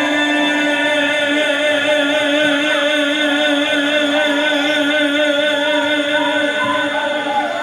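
Norteño music with one long note held steadily throughout, with a slight waver, and other melodic lines moving above it in the second half.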